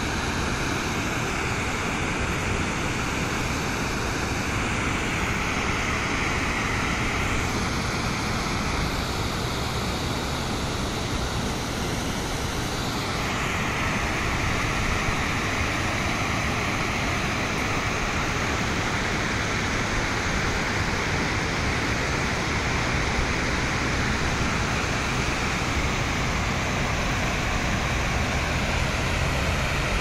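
Steady rush of water pouring over a low-head dam and running through the rocky rapids below it.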